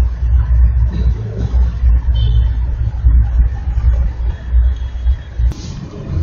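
Loud, uneven low rumble that drops away about five and a half seconds in, with a sharp click.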